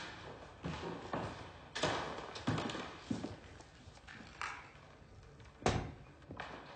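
Objects being handled and rummaged through: a string of light knocks and taps, with one sharper thud near the end.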